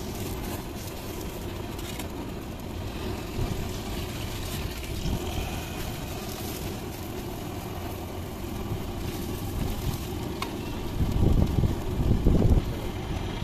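Roadside street ambience: a steady low rumble of passing traffic and wind on the microphone, swelling twice near the end, over a faint sizzle of kulchas cooking on a hot iron tawa.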